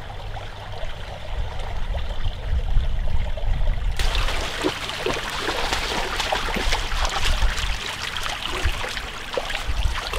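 Shallow creek water trickling and running over rocks. About four seconds in it turns suddenly louder and busier, with splashing as a large English mastiff wades into the creek.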